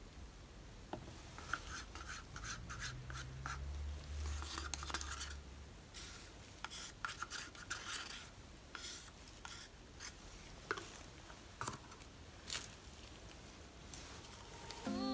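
Quiet scraping and rubbing with scattered small clicks, as of hands handling cups, sticks and paint. A low hum runs from about two and a half to six seconds in.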